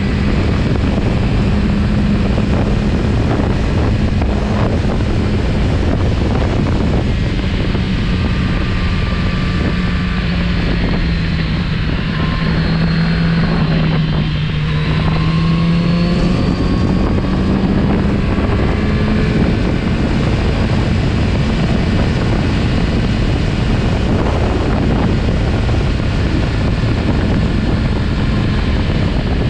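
Kawasaki Z900RS Cafe's inline-four engine running under way at steady revs, over heavy wind and road rush. In the middle the engine note drops for a few seconds, then climbs back.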